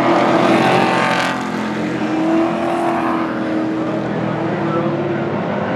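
Pro Truck race trucks' engines running hard at racing speed, several at once, loudest in the first second or so as the pack passes, then easing a little as they pull away.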